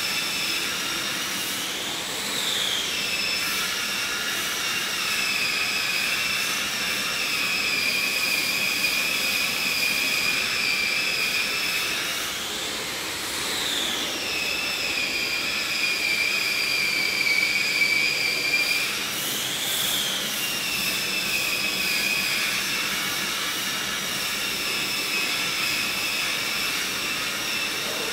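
Cummins NT855 inline-six diesel generator set running steadily, a high whine over the engine noise that briefly rises and falls in pitch three times.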